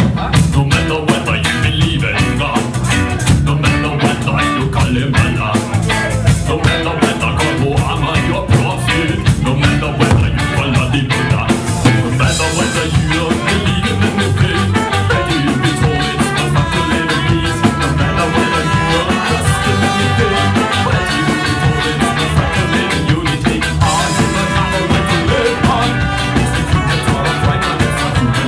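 A live band playing loud ska-style music with drum kit, electric guitars and horns. The first half is driven by dense, regular drum hits, and more held notes come to the fore in the second half.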